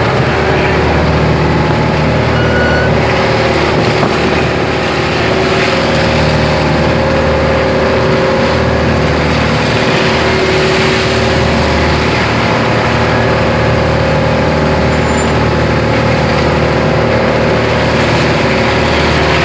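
A fishing boat's engine running steadily at a constant speed, with an even hum that neither rises nor falls.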